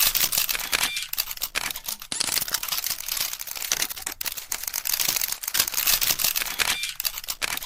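A dense run of sharp, rapid clicks and crackly rustling with short gaps, like close-up handling of something small and hard.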